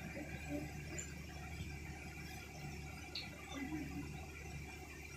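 Faint steady background hum with a thin high whine, and a few faint ticks as a smartphone is handled.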